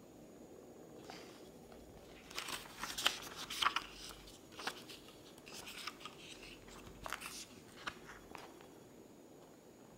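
Pages of a book being turned by hand: a run of dry paper rustles and crinkles, busiest a couple of seconds in and dying away near the end.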